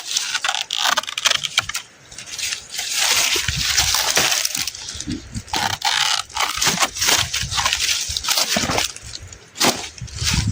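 Yam leaves and stems rustling and snapping as they are cut by hand: a run of irregular crisp crackles and cracks.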